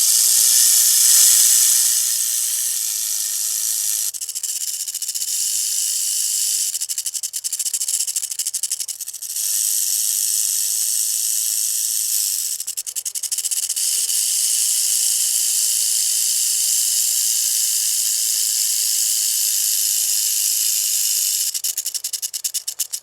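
Rattlesnake shaking its tail rattle: a continuous high buzz. A few times it slows enough for separate clicks to be heard, then runs together again.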